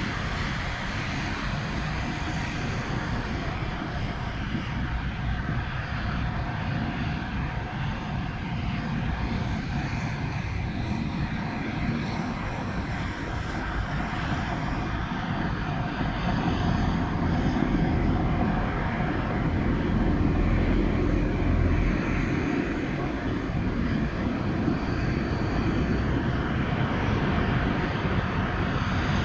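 Blizzard wind rumbling and buffeting the microphone, growing louder about two thirds of the way through.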